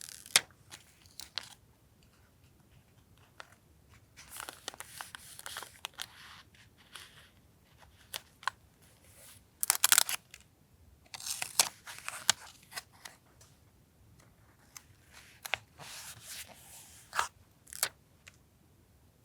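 Paper being handled for a journal collage: several short bursts of paper noise, the loudest about ten seconds in, with light taps and clicks between.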